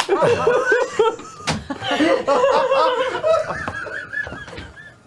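A group of men and women laughing together, several voices overlapping, tailing off near the end.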